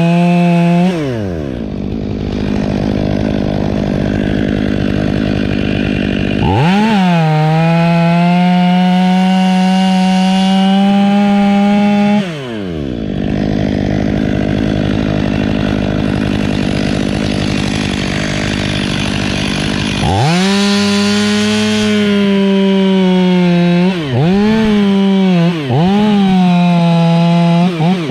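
Stihl two-stroke chainsaw cutting a thick Southern magnolia trunk. It drops to idle about a second in, then revs up and cuts steadily for about five seconds, idles for about eight seconds, and cuts again. In the last stretch the throttle dips briefly twice before it eases off near the end.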